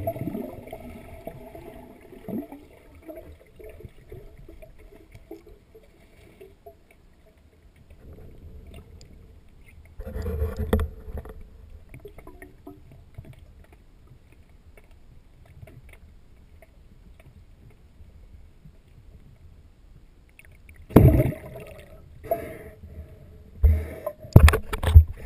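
Muffled water sounds picked up by a camera in an underwater housing: low sloshing and gurgling, with a louder burst about ten seconds in. In the last few seconds comes a run of loud splashes and knocks.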